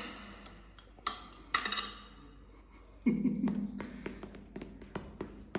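Metal hand tools clinking on a bicycle while its screws are being tightened: two sharp ringing clinks about a second in, then a run of lighter ticks and taps.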